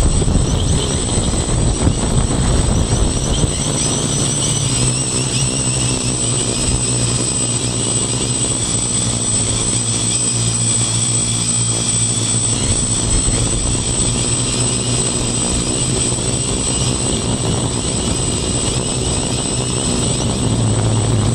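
Handmade quadcopter's four electric motors and propellers buzzing steadily in flight, heard close up through the phone strapped to its frame.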